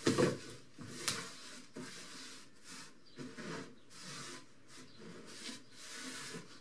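A hand brushing small debris across a plywood workbench top: repeated rubbing swishes, with a sharp knock right at the start and another about a second in.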